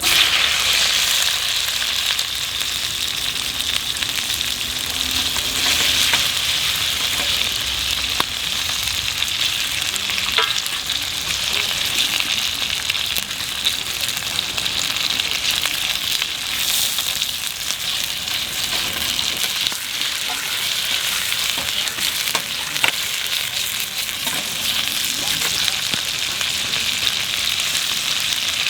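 Food frying in a hot pan: a steady sizzling hiss with many small pops and crackles.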